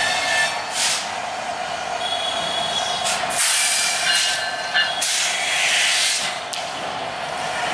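Bangladesh Railway diesel locomotive hauling passenger coaches slowly over worn, poorly jointed track, its engine running steadily. The wheels give off repeated high hissing squeals and screeches, loudest from about three seconds in to about six and a half seconds.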